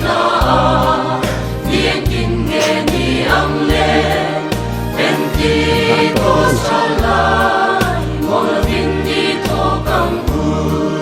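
Background music: a Christian choir song with sung melody over a steady bass line.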